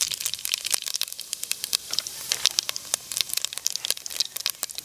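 Whole spice seeds frying in hot oil in a clay pot: steady sizzling with many quick sharp crackles and pops.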